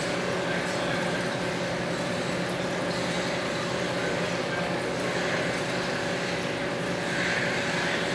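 Steady hum and rushing hiss of a reef aquarium's running equipment: its pumps and circulating water.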